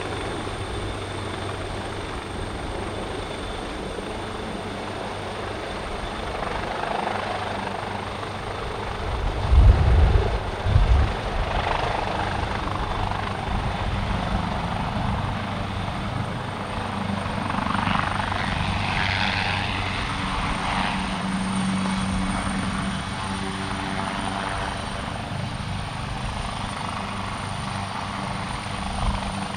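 Leonardo AW139 twin-engine helicopter: its rotor and turbines running steadily. About ten seconds in come two short, loud low thumps.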